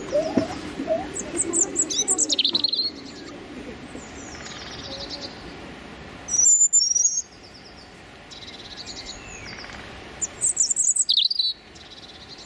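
Small songbirds singing: quick, high-pitched chirping and trilling phrases, loudest in three short bouts near the start, in the middle and near the end.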